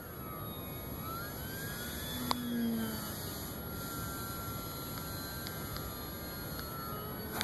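Electric RC plane's AXI 2826/10 brushless motor and propeller whining overhead, the pitch gliding up and down with throttle and passes, over a steady hiss. A short click about two seconds in.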